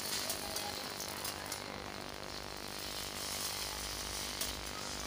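Roasted rice grains poured slowly off a plate into hot water in a pressure cooker: a steady patter of many small ticks.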